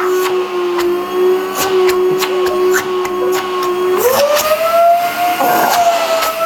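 Household vacuum cleaner running with a steady motor whine that rises sharply in pitch about four seconds in and holds at the higher pitch, with a few short clicks over it.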